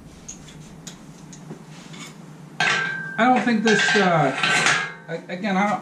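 Metal hand tools clinking and clattering against each other, with a ringing metallic tone; light clicks at first, louder from about halfway through, where a man's voice comes in over it.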